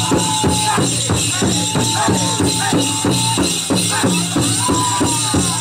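Powwow drum group singing a chicken dance song: a steady, fast beat struck together on the big drum under a chorus of men's voices, with high, held notes from the lead voices.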